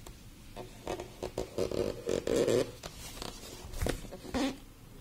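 Fingers rubbing and scraping on a cardboard box as it is handled and turned over. There is a string of short rustles and a few light clicks, which die away in the last half second or so.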